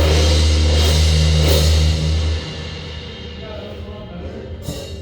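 Front ensemble percussion playing: a loud low sustained bass note under a cymbal-like wash cuts off about two and a half seconds in, leaving quieter ringing mallet notes.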